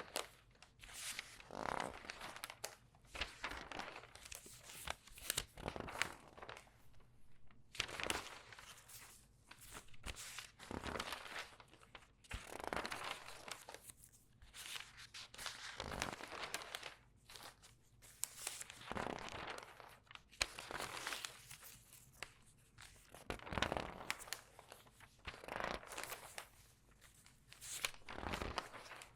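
Regular newspaper pages turned quickly one after another, each turn a rustle with a crinkle as the sheets are squeezed, about one every second or two.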